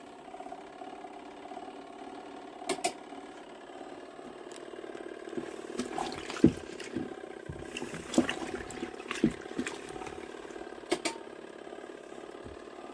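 Mini twin-tub washing machine running: a steady motor hum with water moving, broken by scattered sharp clicks and knocks, including a quick pair about three seconds in and another pair near the end.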